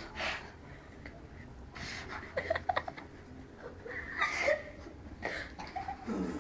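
Boys giggling and laughing in short, broken bursts, one stifling his laughter behind his hand.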